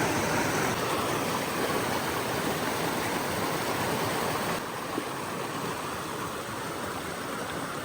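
Creek water rushing steadily over rocks, dropping to a lower, softer level a little past halfway through.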